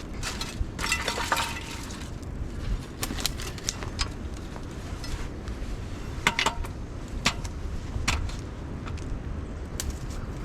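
Wind rumbling on the microphone, with a scattering of sharp clicks and light rattles.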